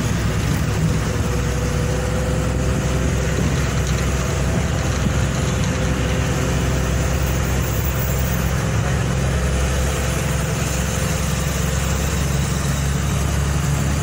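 Steady engine hum and road rumble heard from inside a moving road vehicle.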